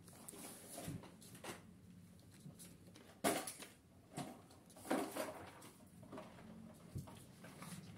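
Hands handling and pressing together small craft parts: scattered rustles and light knocks, with a sharper knock about three seconds in and more near five and seven seconds.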